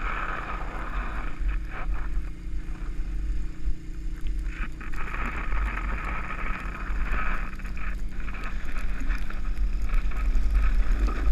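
A plastic trash can lid sliding and scraping over packed snow as it is towed along, with the steady hum of a Can-Am XMR ATV's engine pulling ahead and wind rumble on the microphone.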